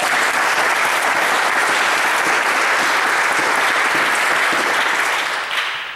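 A congregation applauding steadily in a large room, dying away just before the end.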